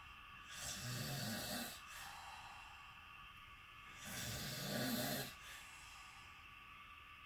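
A person snoring in sleep: two loud, rough snores about a second long each, roughly three and a half seconds apart, with quieter breathing in between.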